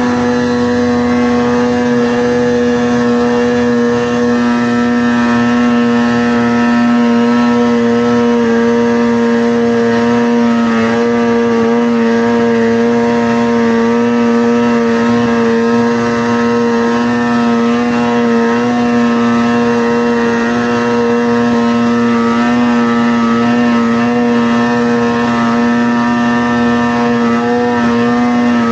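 Vintage snowmobile's two-stroke engine running at a steady high speed under way, its pitch holding nearly constant with only slight wavers.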